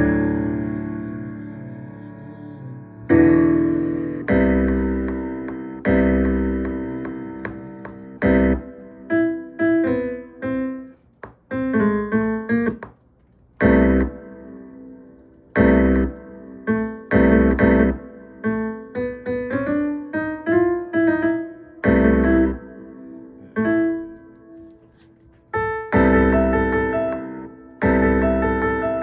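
Piano music with no drums: chords struck and left to ring out, and quick runs of single notes between them, the busiest stretch a little under halfway through.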